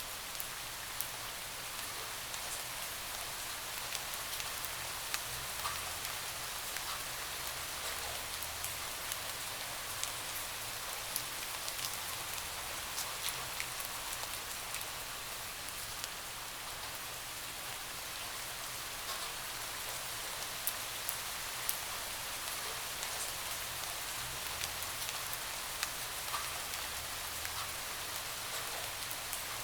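Steady rain hitting a window, an even hiss with many separate sharp drop impacts scattered through it.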